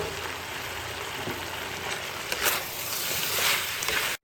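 Beef and sweet mini peppers sizzling as they stir-fry in a pan, with louder stirring scrapes from about two to three and a half seconds in. The sound cuts off suddenly at the very end.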